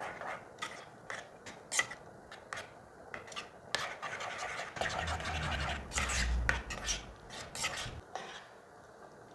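A spoon stirring sauce in a bowl, scraping and clicking against the bowl in irregular strokes, then stopping about eight seconds in.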